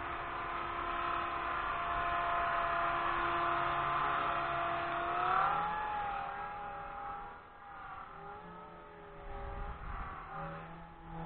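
Blade 180 CFX electric RC helicopter in flight: a steady motor and rotor whine that shifts up in pitch about five seconds in, then wavers up and down and grows fainter.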